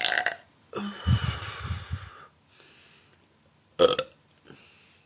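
A girl's low, rough burp about a second in, lasting about a second, then a single sharp click near four seconds.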